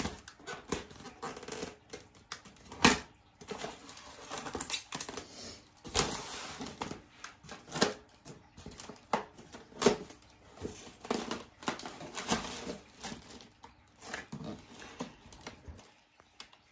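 Knife cutting through packing tape and a styrofoam shipping case being cut and pulled apart: irregular scrapes, rasps and knocks.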